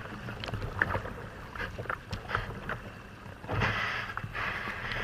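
Kayak paddle strokes in seawater: splashing and dripping close to the hull, with a louder rush of water about three and a half seconds in.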